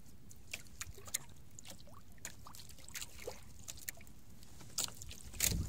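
Water lapping and trickling against the hull of a small boat, with scattered light clicks throughout and a louder knock near the end.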